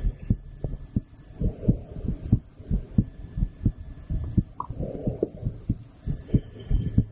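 A woman's heartbeat heard through a stethoscope: a steady run of low lub-dub thuds.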